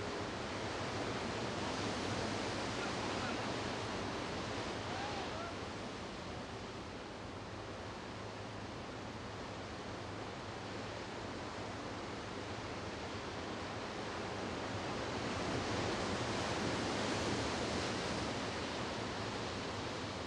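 Steady rushing outdoor noise that swells about two seconds in and again near the end.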